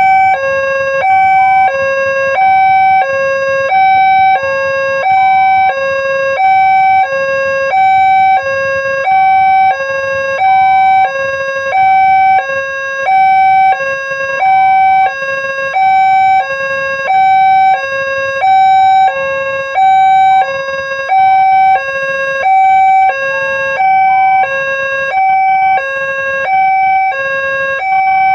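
Electronic railway level-crossing alarm sounding a loud two-tone hi-lo signal, alternating between a lower and a higher tone about once a second and repeating steadily. It is the warning that a train is approaching and the crossing gates are closed.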